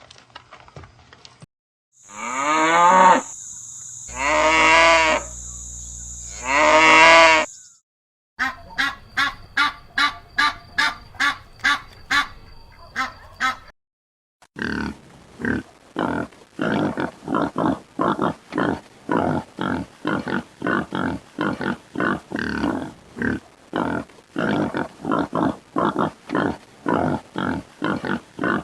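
Farm animals calling in separate clips: three long drawn-out calls about a second apiece, then a long run of short repeated calls, about two to three a second, broken by a brief pause about halfway through.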